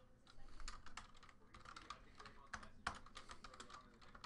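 Faint typing on a computer keyboard: quick, irregular key clicks.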